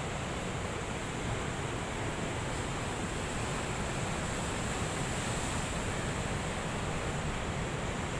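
Steady, even rush of heavy sea surf and wind, with no single wave break standing out.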